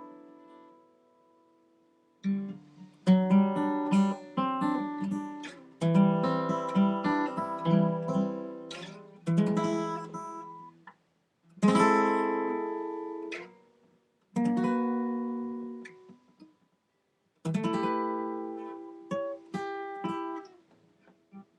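Acoustic guitar playing short phrases of strummed and picked chords. Each phrase is left to ring and die away, with brief near-silent pauses between them.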